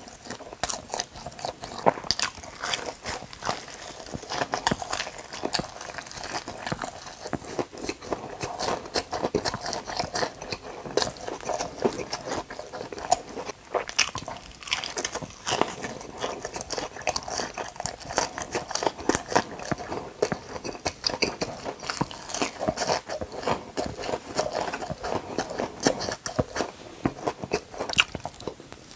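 Close-miked crunching and chewing of a crispy fried chicken cutlet: dense, irregular crackling bites and chews, the thick fried breading breaking in the mouth.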